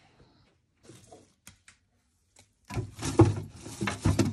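Clear plastic food-storage containers being handled and put into a fridge. A few light clicks are followed, about three seconds in, by a dense run of plastic rustling and clattering against the fridge's shelves and drawers.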